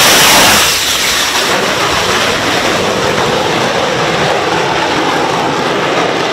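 F-35B fighter's jet engine at full thrust on a short takeoff, lift fan engaged. It is loudest for the first half-second or so, then drops to a steady, slightly lower jet noise as the aircraft climbs away.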